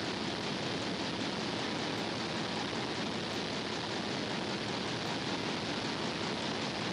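Steady, even hiss with no other sounds in it.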